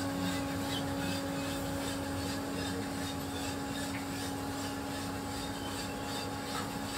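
Coffee roasting machine running mid-roast with its exhaust fan: a steady mechanical hum with one constant tone.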